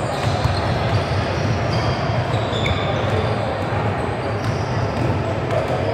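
Basketball bouncing on a hardwood gym floor against a steady din of the gym.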